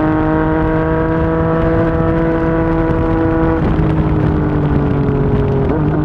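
Yamaha MT-09 inline-three running through a Yoshimura R55 slip-on exhaust under way, the engine note holding steady and rising slightly. The pitch dips about two-thirds of the way through and again near the end. Wind and road noise run underneath.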